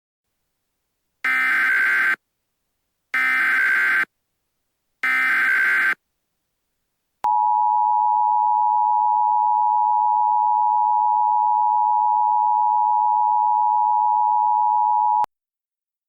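Emergency Alert System SAME header: three one-second bursts of warbling digital data tones, about two seconds apart. Then the EAS attention signal, a steady two-tone beep near 1 kHz, sounds for about eight seconds and cuts off sharply. Together they open an emergency alert broadcast, here a Civil Danger Warning.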